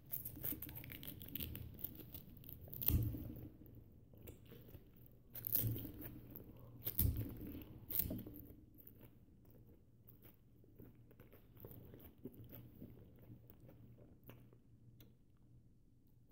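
A person biting and chewing tough banana peel close to the microphone, with several sharp louder bites in the first half and quieter chewing and tearing after that.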